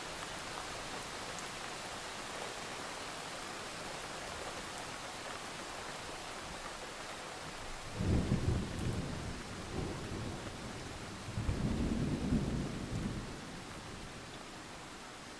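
Steady rain with two low rolls of thunder, the first breaking in suddenly about halfway through and the second a few seconds later, each rumbling for a second or two before dying away.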